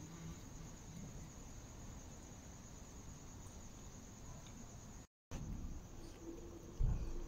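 Crickets chirring steadily in a high band, cut off briefly by a dropout about five seconds in. A low thump near the end.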